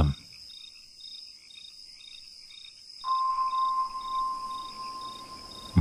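Cricket ambience: a steady high trill with evenly spaced chirps repeating throughout. About three seconds in, a steady mid-pitched tone with a soft hiss beneath it comes in and slowly fades.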